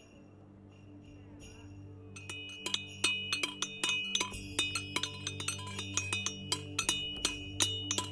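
Two smiths hammering metal on a steel anvil in an uneven rhythm, several blows a second, each strike leaving a high metallic ring. The hammering starts about two seconds in, over a faint steady low drone.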